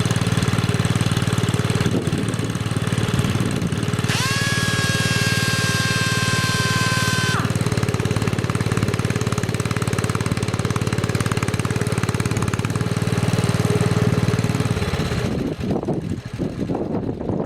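Round-fender John Deere garden tractor engine running steadily, with the Model 20 compressor attachment fitted, then shut off about fifteen seconds in and winding down. For about three seconds in the middle a high, steady whistling tone sounds over the engine, dipping in pitch as it starts.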